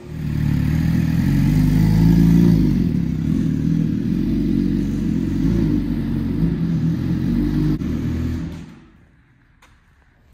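Suzuki GSX-R 750 sport bike's inline-four engine, with the catalytic converter deleted and an M4 slip-on exhaust, running loud and fairly steady on a dyno, then dying away about eight and a half seconds in.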